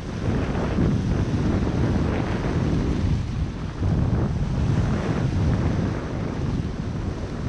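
Strong wind buffeting the microphone over the steady sound of surf breaking and washing in foaming sheets across a shallow rocky reef flat.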